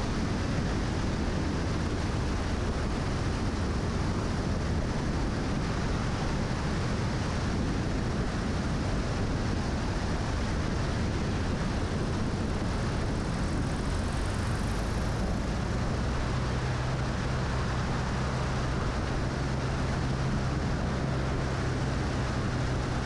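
Single-engine light aircraft in flight, heard from a camera mounted under the wing: a steady engine and propeller drone mixed with wind rush. About two-thirds of the way through, a low steady hum comes in.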